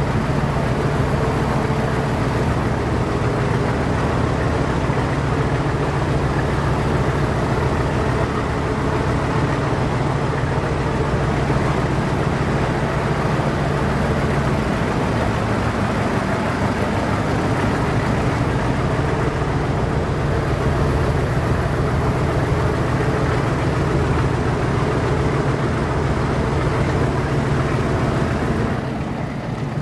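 Class 40 diesel locomotive 40106's English Electric 16-cylinder engine working steadily, heard from the train it is hauling, over the rumble of the coaches on the rails. Its low engine note weakens about halfway through.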